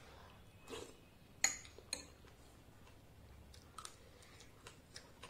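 Metal spoon clinking against a glass bowl: a sharp clink with a short ring about a second and a half in, and a lighter one just after. Soft clicks and ticks of eating follow.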